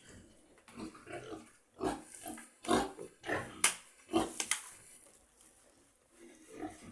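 Pigs grunting in short, repeated calls, packed close together through the first few seconds, then a lull and a few more calls near the end.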